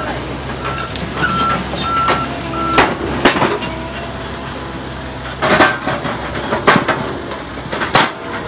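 A heavy diesel vehicle running steadily while its reversing alarm beeps for the first few seconds, then a series of loud, sharp knocks and clanks, five or so spread over the rest.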